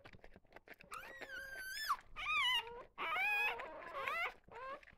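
Newborn goldendoodle-cross puppy squealing: about four high, wavering cries, the first starting about a second in.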